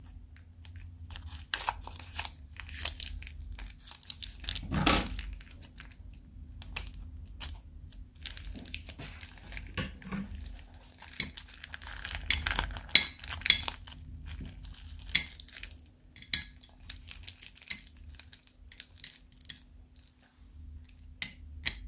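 A plastic bag holding slime is crinkled and squeezed by hand, giving irregular sharp crackles and clicks. There is a longer, louder rustle about five seconds in. Sticky slime with small clay pieces is worked out of the bag into a glass bowl.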